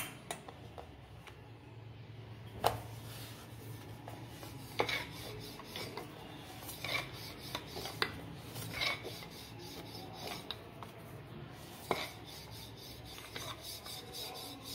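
Wooden rolling pin rolling out a stuffed puran poli on a glass plate, rubbing and rasping across the floured dough. Several sharp knocks are scattered through it.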